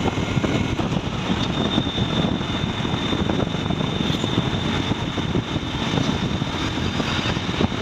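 Truck on the move: steady engine and road noise, with a thin, steady high whine joining about a second and a half in.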